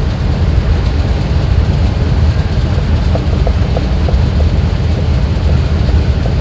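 Steady low rumble of a 2001 GMC Yukon's 6.0-litre V8 engine running, with a few faint clicks about three to four seconds in.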